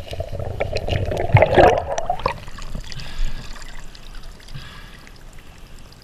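Muffled underwater water noise and bubbling, loud and dense, then after about two seconds the sound drops to splashing and dripping as hands lift a sodden cloth out of the pond.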